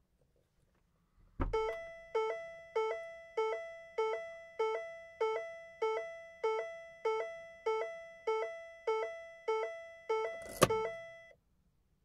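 Car's door-open warning chime: a two-note ding-dong, high then low, repeating about one and a half times a second, starting just after a thunk about a second and a half in. A loud thunk comes near the end, and the chime stops just after it.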